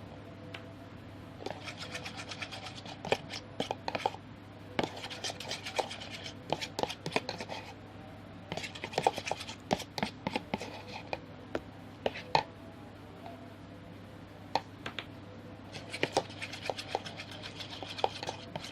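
Slime mixture being stirred in a container as the slime activator thickens it: sticky scraping and clicking in four spells of stirring with short pauses between.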